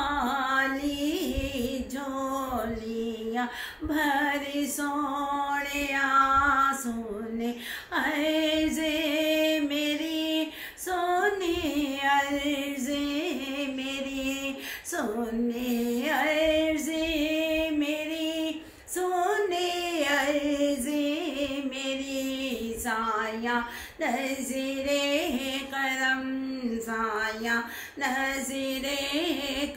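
A woman singing a Punjabi naat (devotional song in praise of the Prophet) with no instruments. She sings in long phrases of several seconds with a wavering pitch, with short breaks between phrases.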